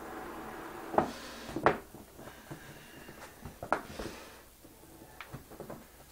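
Sharp knocks and clacks of a small hand tool and hard objects being handled and set down. The two loudest come close together about a second in, with another pair about two seconds later and lighter taps after. A steady hum cuts off just at the start.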